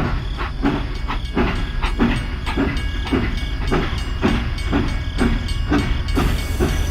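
Train running with a rhythmic chugging of about two beats a second over a steady low rumble.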